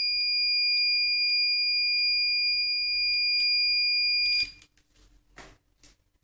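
Buzzer of a homemade infrared-photodiode fire detector circuit sounding one continuous high-pitched tone: the alarm has tripped, signalling that the sensor has detected fire. The tone cuts off suddenly about four and a half seconds in, followed by a few faint knocks.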